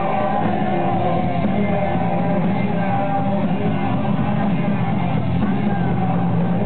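Live rock music: a band playing with a singer's voice over it, steady and dense throughout.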